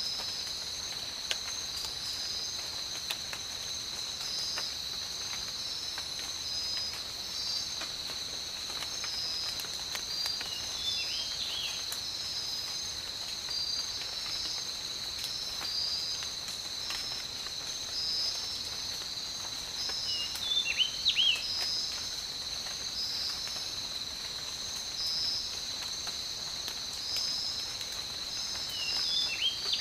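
Steady insect chorus: one continuous high buzz with a pulsing, stuttering trill just above it. A bird gives short clusters of chirps three times: about a third of the way in, about two-thirds in, and near the end. Occasional faint ticks sound behind them.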